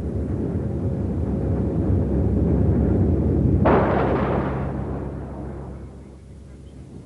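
Lockheed C-130 Hercules four-engine turboprop making a low pass: a deep rumbling drone with steady low propeller tones builds up. About halfway through a sudden harsher rush cuts in, then the sound fades as the aircraft climbs away.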